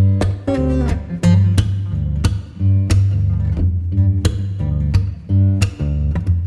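Background music: strummed guitar over a steady bass line.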